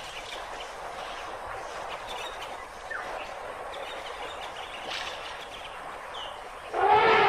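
Outdoor field ambience: a steady hiss with a few faint bird chirps. Loud music cuts in near the end.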